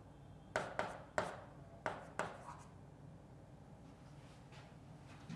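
Marker writing on a whiteboard: a handful of short, sharp pen strokes and taps in the first two and a half seconds.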